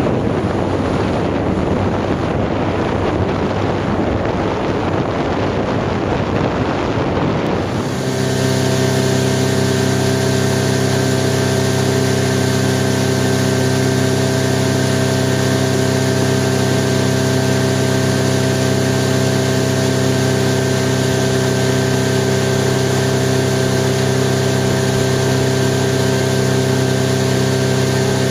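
Motorboats running at speed on open water. For the first several seconds, wind buffeting and rushing water dominate. About eight seconds in, the sound switches abruptly to a steady engine drone held at one constant pitch over the rush of water and wind.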